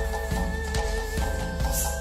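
Background music with a steady drum beat, about two beats a second, over held notes.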